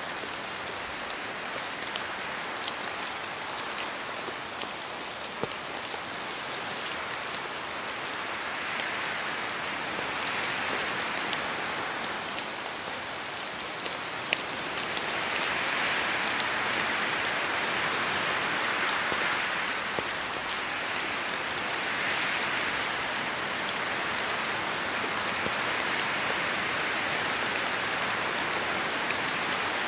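Steady rain falling in a forest, a dense hiss with countless individual drop ticks, with wind swelling through the trees and the whole growing a little louder about halfway through.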